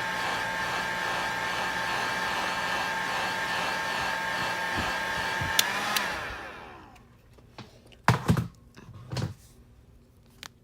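Electric heat gun blowing steadily with a whine over its airflow. About six seconds in it is switched off with a click, and the fan winds down over a second. A few light knocks follow.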